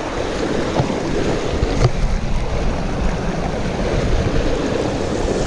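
Wind buffeting the microphone over the steady rush of a creek, with a couple of faint knocks.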